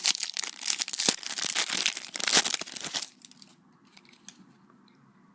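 Foil trading-card pack being torn open and crinkled by hand, a dense crackling for about three seconds, then a few faint rustles.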